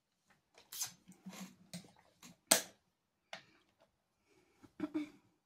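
Small close-up handling noises: a run of sharp clicks and soft knocks, the sharpest about two and a half seconds in.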